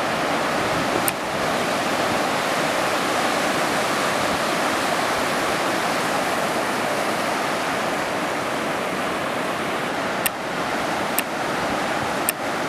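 Ocean surf breaking: a steady rush of whitewater noise, with a few faint clicks near the end.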